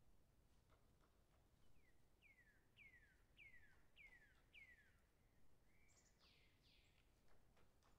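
Faint bird song over near silence: a run of about six quick downward-sliding whistles, then a harsher call.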